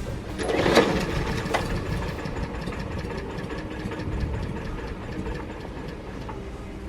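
Push lawn mower's small gasoline engine running steadily, with a louder surge just under a second in.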